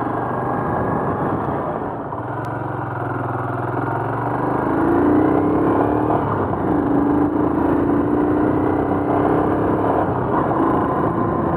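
Royal Enfield Himalayan's single-cylinder engine pulling away under way. Its note rises as it accelerates about five seconds in, then holds steady at cruising speed over a constant rush of road noise.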